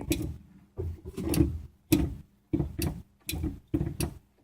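3D printer's Y-axis limit switch clicking as the axis reaches the end stop, with a series of about nine short clicks and knocks. The clicks show that the newly fitted printed extension part now lets the Y-axis bar reach and trigger the switch.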